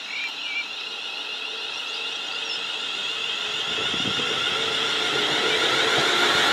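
London Northwestern Railway Class 350 Desiro electric multiple unit approaching along the main line. Its running noise is a steady high whine that grows steadily louder as it nears.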